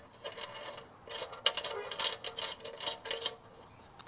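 Light metallic clicks and clinks as a banjo fitting, its washers and nut are fitted by hand to the fuel outlet of a motorcycle fuel tank, a run of short sharp ticks between about one and three and a half seconds in.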